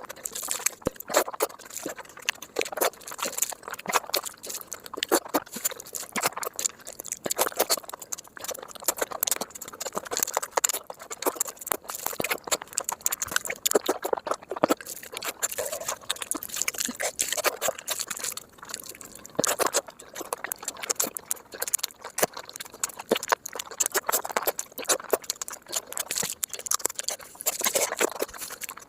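A person chewing and smacking their lips while eating, giving a dense, irregular run of wet clicks and smacks.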